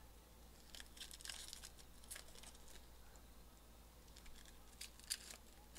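Faint crinkling and soft clicks of trading cards and foil card-pack wrappers being handled and shuffled, with a few sharper clicks about five seconds in.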